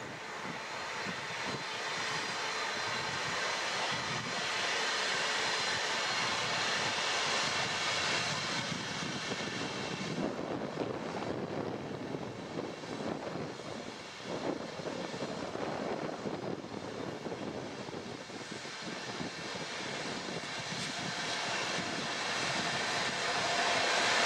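InterCity train passing on a far track: the steady rolling and running noise of the coaches, growing to its loudest near the end as the electric locomotive at the rear draws level, with a steady hum from the locomotive joining in.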